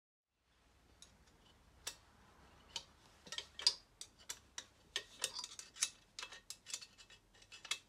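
Metal clicks and ticks of a wrench working the small size 9 fuel-tank mounting nut loose on a Velo Solex 3800 engine. The clicks are sparse and irregular at first, then come thicker and faster from about halfway.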